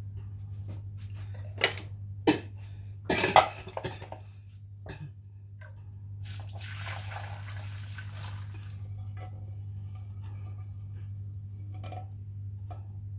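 Cookware and utensils knocking in a kitchen: a few sharp clacks, the loudest about three seconds in, followed by a few seconds of hiss, over a steady low hum.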